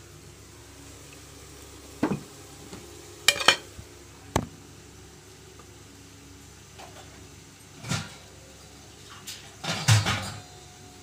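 Kitchen containers and utensils being handled: a handful of separate sharp clinks and knocks, with the loudest cluster near the end.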